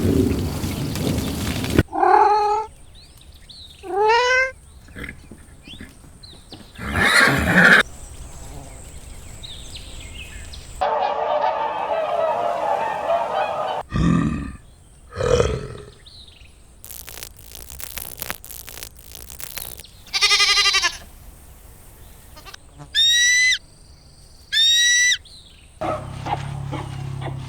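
A string of short, varied animal calls one after another, with abrupt changes between them: calls sliding downward in pitch early on, a rough noisy stretch in the middle, then two matching rising calls.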